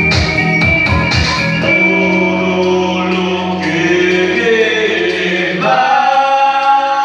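Live band music: a drum beat with bass stops about two seconds in, leaving sustained keyboard chords under several voices singing in harmony.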